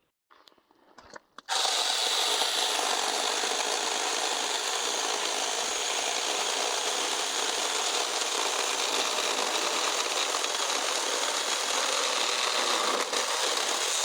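Saker mini electric chainsaw (20-volt battery) cutting through a tree branch: a steady, even sawing noise of chain through wood that starts about a second and a half in and holds without a break.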